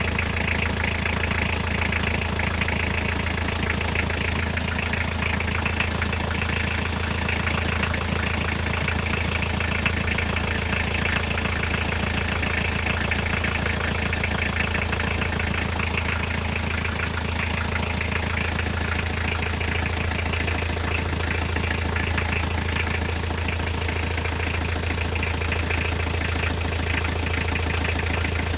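Toyota car engine idling steadily with a fast, even tapping knock riding on the hum; the source of the knock is unknown to the owner.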